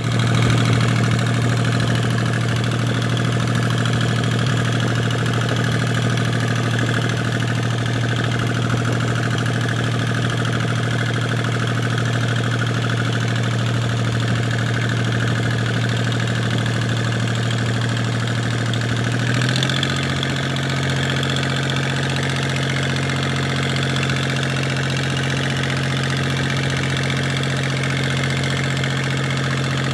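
Fishing boat's engine running steadily. About two-thirds of the way through, its pitch steps up a little as the engine speeds up, then holds.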